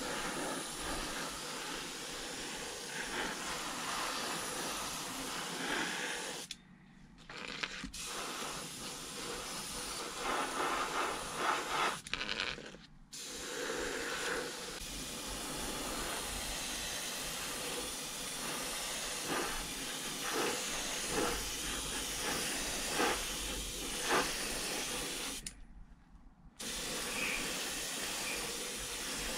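Harder & Steenbeck airbrush spraying grey primer, a steady hiss of air and atomised paint. It stops briefly three times: about 7 s in, about 13 s in, and near the end.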